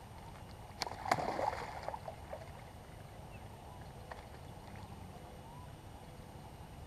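Carp splashing in shallow water as it is let go, a short burst of splashing starting about a second in and dying away within a second, followed by a few faint drips and knocks.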